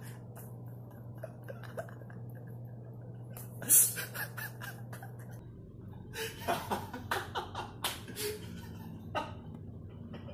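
A man laughing in short breathy bursts, with a denser run of laughter in the second half.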